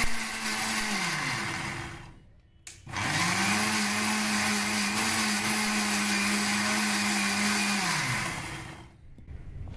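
Electric mixer grinder (mixie) grinding soaked whole green moong dal into a thick batter in pulses. The motor winds down with falling pitch in the first second or two, starts again about three seconds in, runs steadily for about five seconds, then winds down again near the end.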